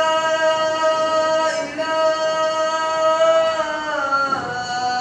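A man's voice chanting the adhan, the Islamic call to prayer: one long held melodic note for about four seconds, then a brief turn in pitch and the start of the next phrase near the end.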